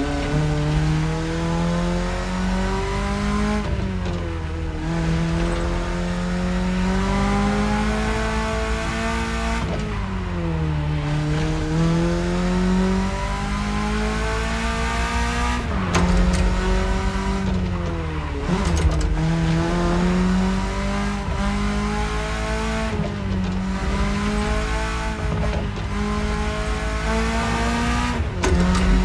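BMW E30 engine running under way, its revs climbing and falling: the pitch rises steadily and then drops sharply several times, as with gear changes.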